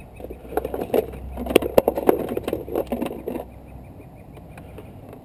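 Handling clatter from a pneumatic drill being picked up and readied: irregular clicks and knocks for about three seconds, then dying down over a faint low hum.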